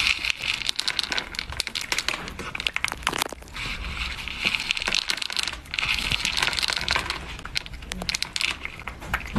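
Cat eating dry kibble from a plastic bowl, close up: rapid, irregular crunching and rattling clicks as it pulls the pieces out with its paw and chews.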